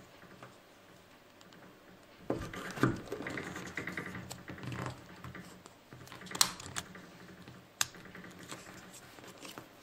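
Small rubber-and-plastic LED safety light and its strap being handled: rustling with several sharp clicks, the loudest about six and a half seconds in.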